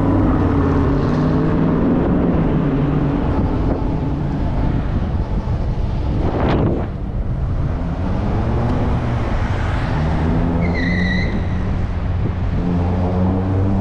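Steady wind and road noise of riding an electric bike through city traffic, with a low hum of vehicles that drifts up and down in pitch. A sharp swish about six and a half seconds in, and a short high-pitched squeal near the end.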